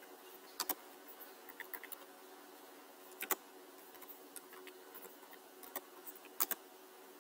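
Computer keyboard being typed on: scattered, irregular key clicks, a few of them much louder taps, over a faint steady hum.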